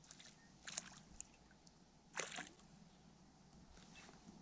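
Small splashes from a hooked sunfish thrashing at the pond surface beside the boat as it is played on a fly line: a few faint ones, the two loudest about a second and a half apart.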